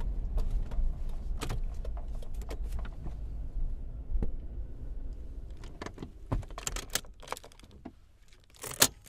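SUV being parked: the low engine and road rumble dies away over several seconds, with scattered small clicks throughout. Near the end come clusters of clicks and rattles, with one sharp loud click.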